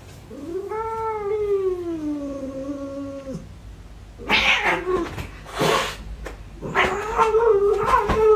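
Domestic cat yowling: one long drawn-out call that rises, then slowly sinks in pitch for about three seconds, then a few harsh, noisy bursts, then a second wavering yowl near the end.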